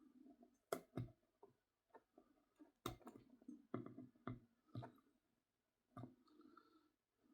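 Faint, irregular clicks and taps of a plastic model locomotive and its small parts being handled, about eight sharp clicks with soft rustling between.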